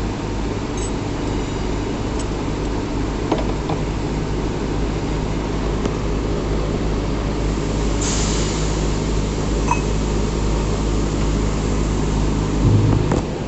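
CNC machines running with a steady electrical hum and machining noise, with a few light metallic clinks and a louder low thump near the end.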